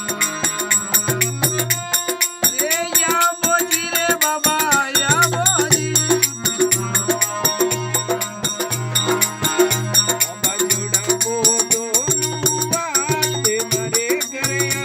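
Devotional bhajan: a voice sings in gliding, ornamented phrases over folk percussion, with a dense jingling rattle and tambourine pattern and a low note that pulses in an even beat.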